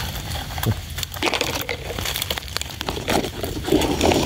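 Dry leaf litter and twigs crackling and rustling as hands and a knife dig through the forest floor to pick mushrooms, a dense run of sharp crackles.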